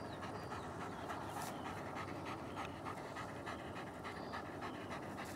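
German Shepherd dog panting steadily while gripping a stick in its mouth, worn out by exertion in heat over 40 °C.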